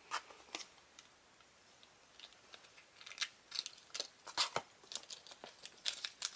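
Scissors cutting through the packing tape on a cardboard toy box, with short snips and crackles of tape and cardboard. They come sparsely at first and grow busier from about three seconds in.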